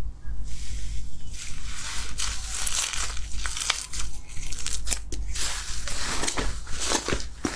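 Slime being squeezed and worked by hand, making a dense run of small crackling pops and squelches that start about a second in.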